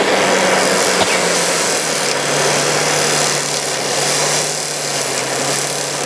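Propane torch flame hissing steadily against a microwave's spinning plastic cooling fan, over a steady hum from the fan motor. The hum drops in pitch a little between one and two seconds in.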